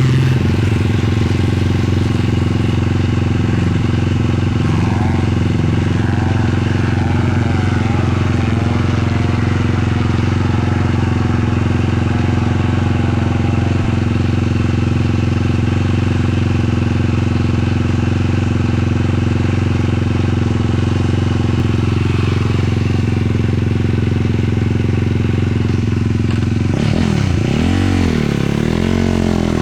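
Single-cylinder 450 sport quad engine running under way at a steady pitch; near the end the engine note rises and falls several times as the throttle is worked.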